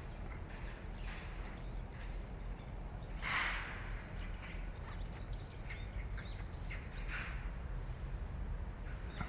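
Scattered short bird chirps over a steady low rumble, with one louder short burst of noise about three seconds in.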